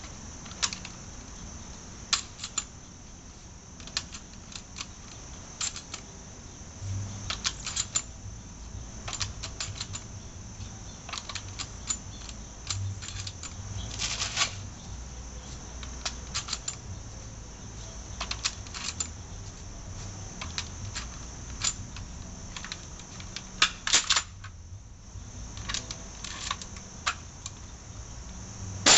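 Sharp plastic clicks of airsoft shotgun shells being handled and pushed one at a time into the magazine tube of a Maruzen M1100-mechanism shotgun, with a louder burst of clacks about 24 seconds in as the action is worked.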